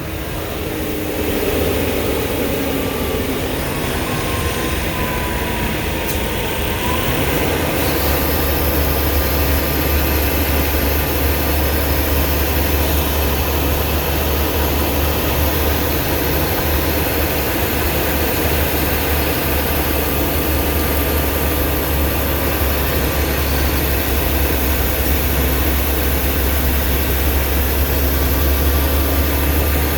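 Blue Bird school bus driving: a steady engine drone with road noise. Its pitch sinks over the first several seconds, then about eight seconds in a deep low rumble comes up and holds steady.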